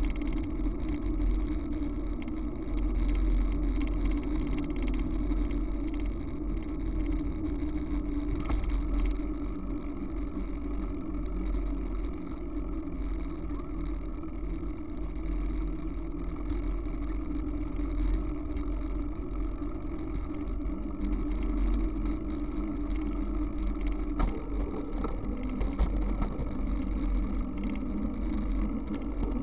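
Steady rumbling noise from a bicycle rolling along an asphalt road, picked up by a camera riding on the bike, with wind on the microphone.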